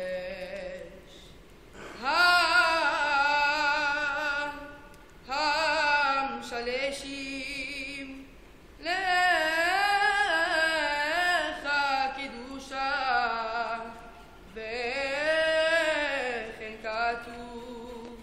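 A boy's high voice singing solo and unaccompanied: a Jewish cantorial-style chant in long phrases with wavering, ornamented pitch and short pauses for breath between them.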